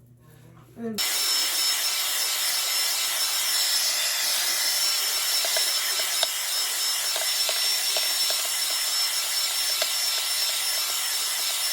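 Handheld hair dryer switched on about a second in and running steadily with a thin high whine, then shut off abruptly at the end, used to blow-dry natural hair straight.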